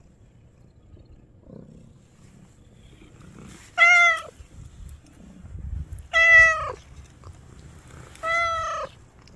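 A calico street cat meowing three times, about two seconds apart. Each meow lasts about half a second and drops in pitch at the end.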